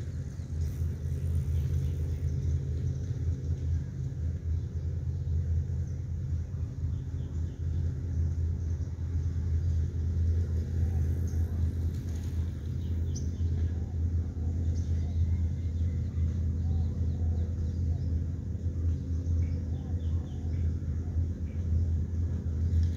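Steady low background rumble with a faint hum running through it.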